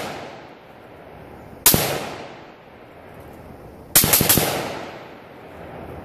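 Rifle gunfire: the echo of a shot dying away at the start, a single shot a little under two seconds in, then a rapid string of about four shots about four seconds in, each trailing off in a fading echo.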